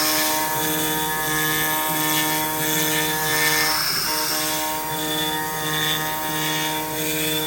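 CNC router running as it cuts plastic: a steady motor whine over a rushing hiss, with the pitched tones breaking off and starting again at about four seconds in, as the machine changes moves.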